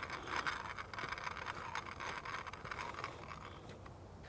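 Measuring wheel rolling across asphalt, its counter ticking rapidly and faintly. The ticking stops near the end.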